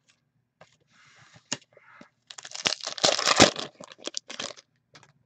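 A hockey card pack's foil wrapper being torn open and crinkled by hand, loudest for about two seconds in the middle, after a few light clicks of cards being handled.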